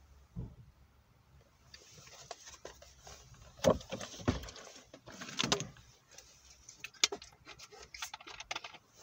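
Rustling, knocks and sharp clicks of a drink being got out and handled. The loudest knock comes a little under four seconds in, and a run of quick clicks follows near the end.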